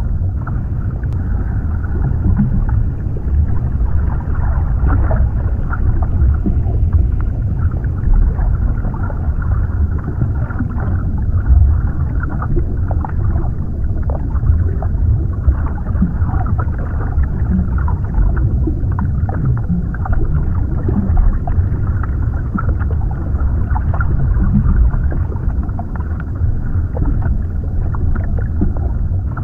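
Underwater ambience: a deep, steady, muffled rumble with small pops and gurgles scattered through it.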